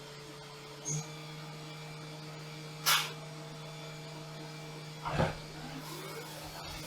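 CNC milling machine running while machining a titanium keycap: a steady hum with a low tone, broken by three short noisy bursts about one, three and five seconds in, the middle one the loudest.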